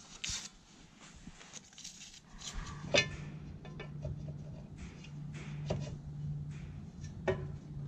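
Scattered clicks and light metallic knocks of hand work on a John Deere planter row unit as its seed opening disc is taken off to pull out a spacing shim. The sharpest click comes about three seconds in. A low steady hum comes in a few seconds in.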